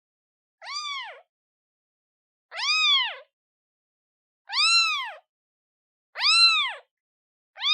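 Newborn kitten, a day old, meowing repeatedly to call its mother: four short, high cries about two seconds apart, each rising and then falling away in pitch, with silence between, and a fifth starting at the end.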